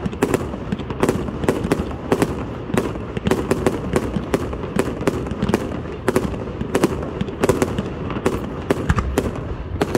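Fireworks display: shells launching and bursting in a continuous run of sharp bangs, about three a second, over a steady noisy background.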